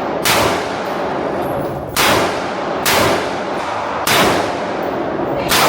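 Gunshots at a shooting range: five single shots at uneven spacing, each followed by a short echoing tail.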